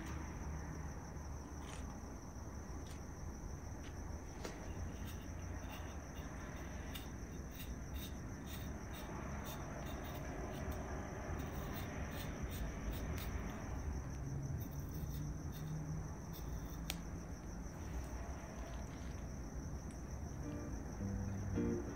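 Soft clicks and scrapes of hands peeling a golden kiwi fruit and laying food into a salad bowl, thickest in the middle. Under them run a steady high-pitched chirring and a low hum.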